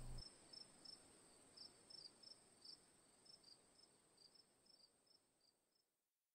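Near silence with faint crickets chirping, about three chirps a second over a thin high steady trill, fading out near the end.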